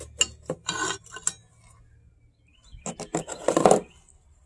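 Metal engine parts being handled, clinking and scraping against each other. There are a few clinks in the first second and a half, then a louder burst of scraping and clatter about three seconds in.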